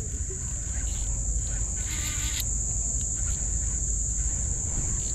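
Steady high-pitched chorus of insects, with low wind rumble on the microphone and a short hiss about two seconds in.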